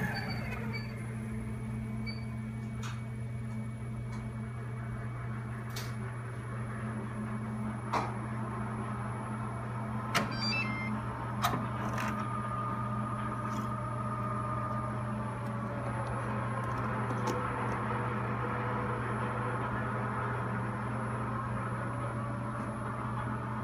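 Steady low hum, with the clicks and knocks of the planetary mixer's lid being unlatched and lifted, and a few short high beeps about ten seconds in.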